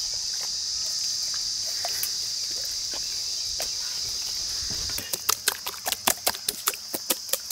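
Hands squelching and slapping as they knead thick masala paste into whole country chickens, several wet smacks a second, starting about five seconds in. Before that, a steady high insect drone with a few faint clicks.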